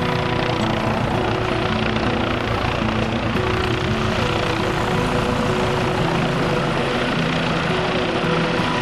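Helicopter rotor and turbine running steadily, a dense unbroken noise. A string of held notes at shifting pitches sounds over it like a tune.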